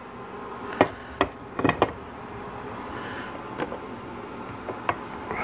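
A few short, sharp clicks and knocks from handling a cordless drill and reamer against an aluminium transmission pump body, over a steady low hum. The drill is not yet running.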